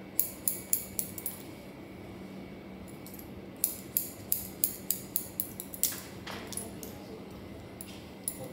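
Hair-cutting scissors snipping through hair: a quick run of about five snips, then after a pause a longer run of about eight, roughly three a second.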